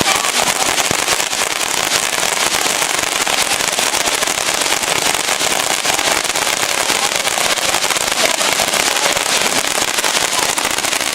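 A firework giving off a steady, dense crackle and hiss, countless tiny pops run together without any single big bang.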